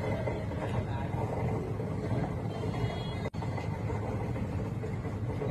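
Fishing boat's engine running steadily, mixed with the wash of moving water, with a momentary dropout a little past the middle.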